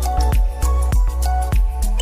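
Background music with a steady, quick beat and a held melody over a heavy bass line.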